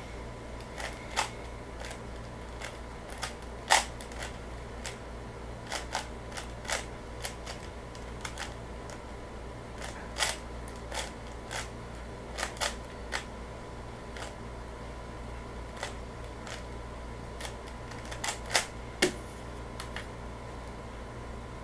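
A 3x3 speedcube being turned one face at a time at an unhurried, irregular pace, as when a scramble is applied before a timed solve: separate plastic clicks, now and then two in quick succession. A few sharper clacks come near the end.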